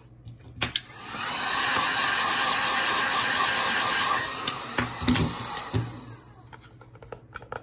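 A Genesis GHG1500A heat gun blowing steadily as it warms the vinyl magazine wrap. It comes on about a second in and dies away between about four and six seconds in, with a few clicks and handling knocks around the end.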